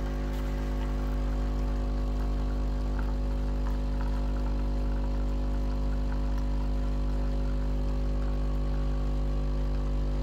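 Breville Barista Pro espresso machine's vibratory pump humming steadily while it dispenses into the glass mug.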